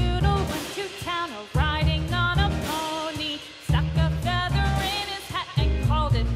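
Upbeat background music: a melody over a regular bass beat.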